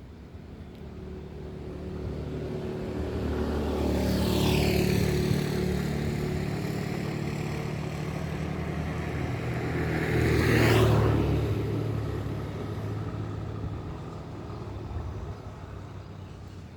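Motor vehicles driving past, one about four seconds in and another about eleven seconds in, each rising and fading with a low engine and tyre rumble.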